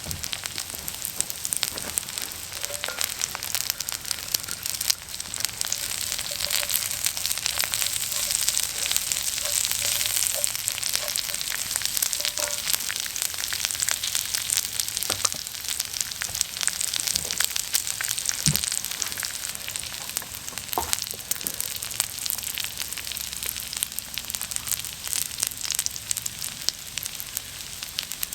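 Food sizzling and crackling in a hot pan, a dense steady frying hiss.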